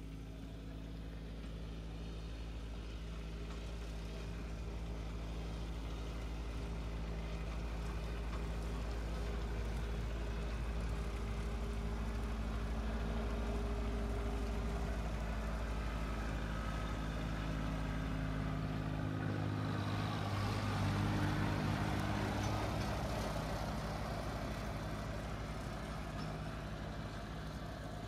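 Red compact tractor's engine running steadily as it pulls a Bush Hog rotary mower through grass. The sound grows louder to a peak about two-thirds of the way through, then eases off.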